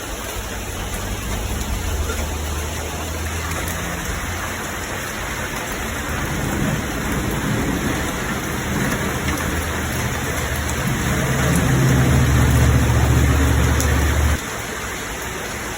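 Steady heavy rain falling. A low rumble builds up under it in the second half, grows loudest, then cuts off suddenly near the end.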